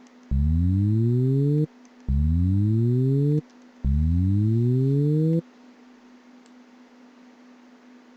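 Ableton Live's Operator synthesizer, set to a Saw 3 waveform, plays a synthesized motorcycle throttle-twist sound three times: a low buzzy tone that rises in pitch for about a second and a half, then cuts off abruptly. It is a work-in-progress imitation of a big bike revving, shaped by a pitch envelope.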